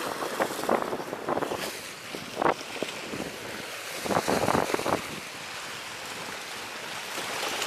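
Waves breaking and splashing on the rocks of a seawall breakwater, with strong gusty wind buffeting the microphone. A few short, louder splashing or handling sounds come in the first five seconds, then a steadier rush of wind and surf.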